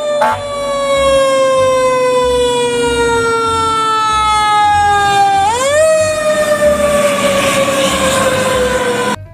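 Fire truck siren wailing: a long tone that slowly falls in pitch, is pushed sharply back up about five and a half seconds in, then falls slowly again. It cuts off abruptly just before the end.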